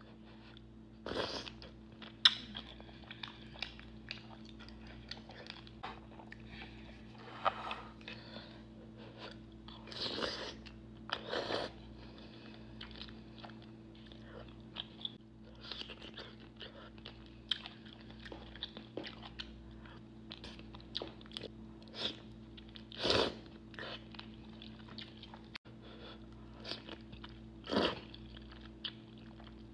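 Close-miked mukbang eating: a person biting and chewing food, with irregular crunches and a few sharper, louder bites, over a steady low hum.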